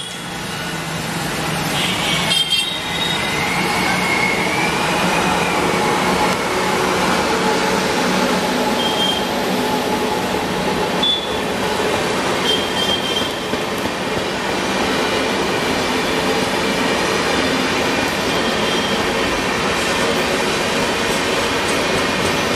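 WAP7 electric locomotive and LHB passenger coaches of an express train passing at speed: a steady rumble and clatter of wheels on rail. A few brief high squeals, likely from the wheels on the curve, come part-way through.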